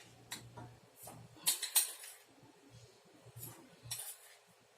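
A spoon clinking and tapping against a cooking pan as sugar is spooned in over oil and popcorn kernels: a few light, separate clicks, the clearest about a second and a half in and again near the end.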